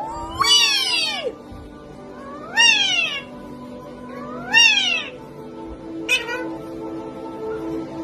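A pet parrot calling "weeee" three times, each a drawn-out cry that rises and then falls in pitch, about two seconds apart, followed by a short, higher call about six seconds in. Background music plays underneath.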